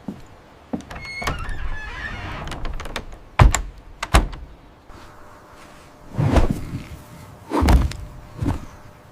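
A series of thuds and knocks: two sharp knocks close together, then two heavier, longer thumps and a smaller one, over a rustling noise.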